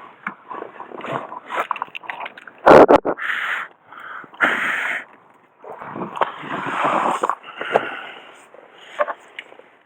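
A pickup's seat being moved back by hand: rustling and clicks, a loud clunk a little under three seconds in, then further bursts of rustling and scraping.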